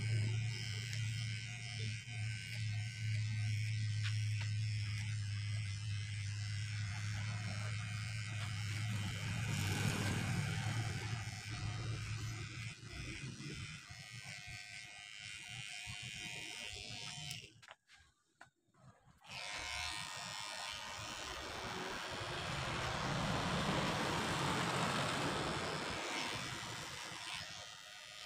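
Electric hair clippers running and cutting short hair. A steady low hum fades out about halfway through. After a short near-silent break, a noisier cutting buzz returns.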